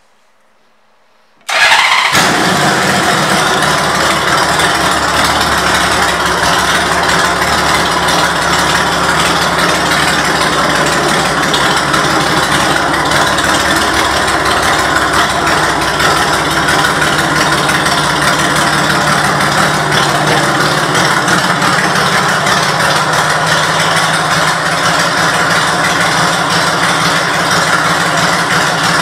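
A 1997 Honda Valkyrie's flat-six engine, fitted with a 6-gunner exhaust, starts about a second and a half in and settles into a steady idle.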